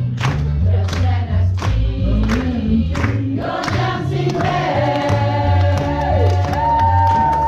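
The stage cast singing a song together over musical accompaniment with a bass line and a steady beat, ending on long held notes.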